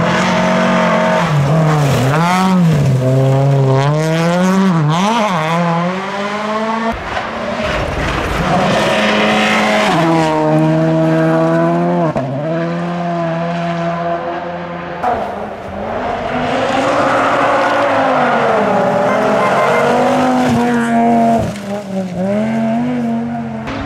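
Rally cars at full effort on a gravel stage, one after another, engines revving hard with repeated rises and falls in pitch as they shift gear and lift through the bends.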